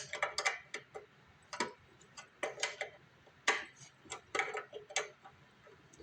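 Wrench working a bolt tight: short runs of sharp metal clicks, about one run a second, with pauses between strokes.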